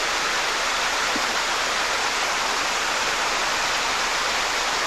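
Whitewater in river rapids rushing steadily, an even, unbroken noise of churning water.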